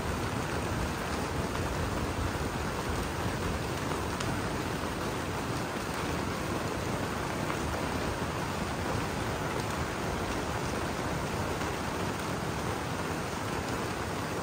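Steady rain falling on the clear panels of a geodesic dome and the forest around it, heard from inside the dome as an even, unbroken hiss.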